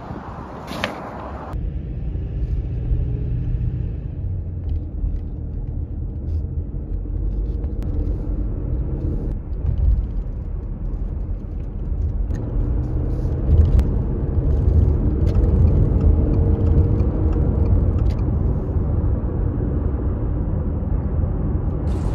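Engine and road noise from inside a moving car's cabin: a steady low rumble that grows louder about halfway through as the car picks up speed onto a highway. A brief sharp knock sounds near the start.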